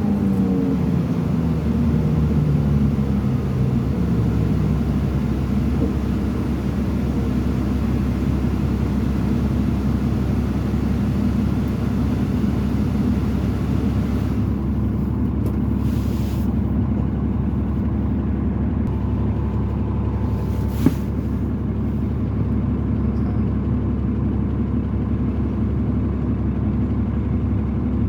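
Diesel transit bus with a Cummins ISL engine running under way; the engine note falls in pitch over the first few seconds, then holds a steady rumble. One sharp knock about twenty seconds in.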